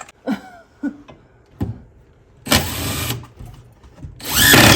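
Power drill driving a screw to fix a bracket to a wooden board: two short runs of the motor, about two and a half seconds in and near the end, the second shifting in pitch as it runs. A couple of light clicks of handling come before.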